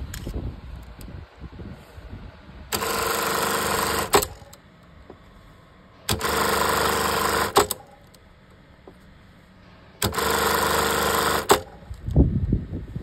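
Industrial lockstitch sewing machine running in three short bursts of about a second and a half each, every burst stopping with a sharp click. A few low thumps follow near the end.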